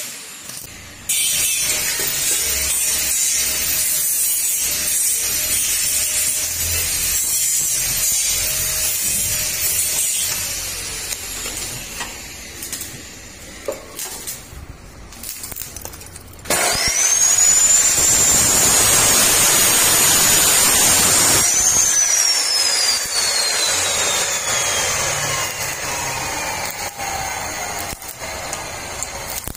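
Stick welding on steel tubing, a steady crackling arc for several seconds. Later an abrasive chop saw spins up with a rising whine and cuts through steel bar for about five seconds, then the blade winds down in a long falling whine.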